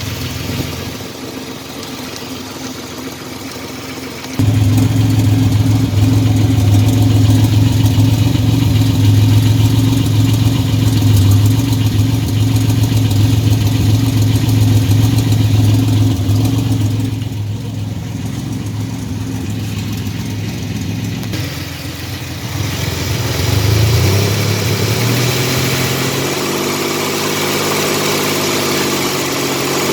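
1985 Chevy S10's 2.8 L carbureted V6 running at idle with an engine noise the owner can't yet identify, described as knocking or something. It gets abruptly louder about four seconds in, and near the end the engine speed rises and wavers as it is revved slightly.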